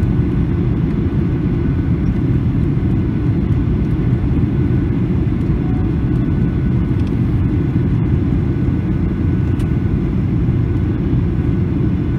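Steady low rumble of engine and airflow noise inside the cabin of a Boeing 737-800 descending on approach with flaps extended.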